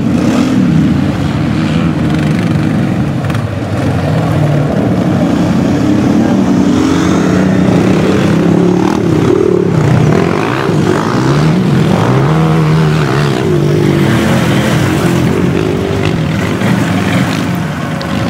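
Quad (ATV) engine revving up and down over and over, its pitch rising and falling, as it drags a load on a tow rope through mud.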